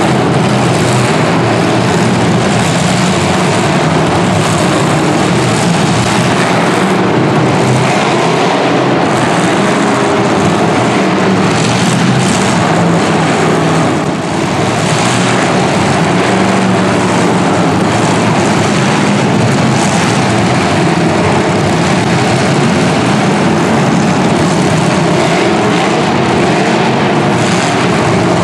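Engines of 1980s stock full-size demolition derby cars running hard together, a loud continuous drone that stays steady throughout.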